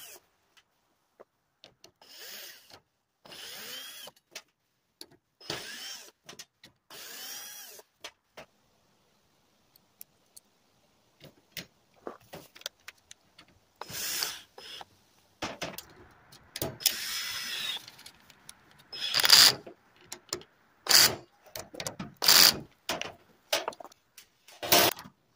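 Worx 20-volt cordless drill-driver running in short bursts, each whine spinning up and back down, as it drives screws at the corners of a plastic case fan to fit metal brackets. There are about ten bursts with a few seconds' pause near the middle, and the later ones are louder.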